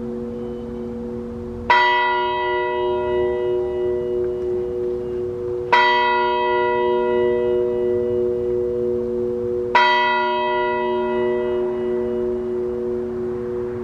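A bell struck three times, about four seconds apart, each strike ringing out and fading over a steady hum that lingers between strikes.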